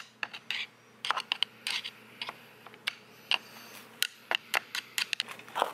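A metal tool scraping and tapping against the metal saw head of a Stihl pole saw attachment, a quick irregular run of clicks and scrapes, as packed-in gunk is dug out of it.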